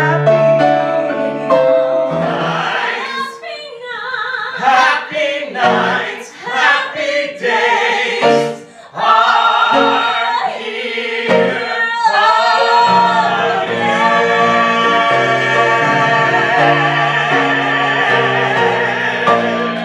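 Live vocal trio, a woman and two men, singing together in harmony with grand piano accompaniment. In the second half the voices settle into a long held chord while the piano moves beneath them.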